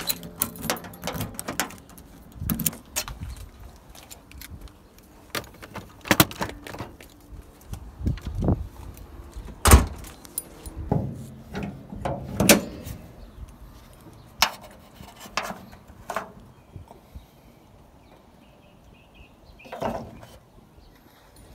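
Keys jangling and turning in a Mazda Miata's door lock, followed by a run of sharp clicks and clunks as the car is opened up. The loudest clunk comes a little under ten seconds in.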